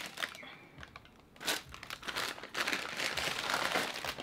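Paper bakery bags crinkling and rustling as pastries are handled on and out of them. There is a sharp crackle about one and a half seconds in, then a couple of seconds of continuous rustling.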